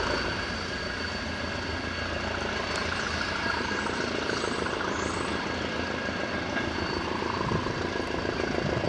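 Northern Ireland Railways diesel multiple unit's engine running as the train pulls away, fading over the first moment and then holding steady.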